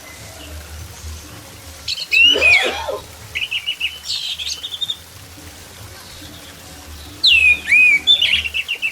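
Orange-headed thrush singing: loud phrases of sweeping whistles followed by quick runs of repeated notes, about two seconds in and again near the end, over a low steady hum.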